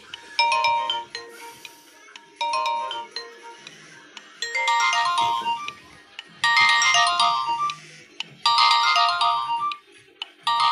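Nokia 1110i built-in ringtone playing, a short melodic phrase that starts over about every two seconds. The phrase grows fuller, with more notes, about halfway through.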